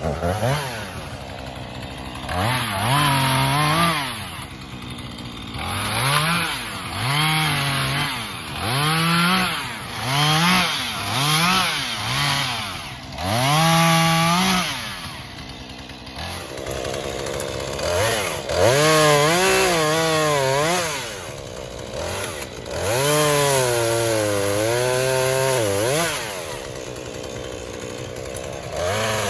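Two-stroke Husqvarna chainsaw revved in a quick series of short bursts, then held at speed through longer cuts into wood, its pitch sagging and recovering under load.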